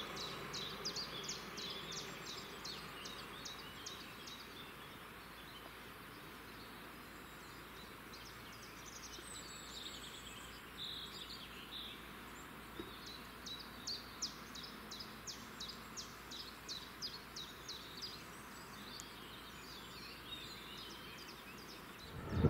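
Birds singing in runs of quick, high, repeated notes, over a faint outdoor hush. In the first few seconds a passenger train's low rumble fades away as it leaves through the tunnel.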